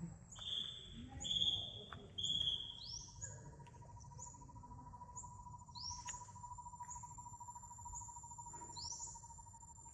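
Birds calling over a steady high-pitched insect drone. Three loud whistled notes come in the first few seconds, followed by a series of short rising chirps. A steady lower hum joins about three seconds in.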